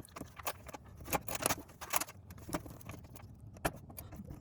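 Cables and plastic power connectors handled inside a PC case: irregular clicks, taps and rustles as connectors are pushed toward their sockets.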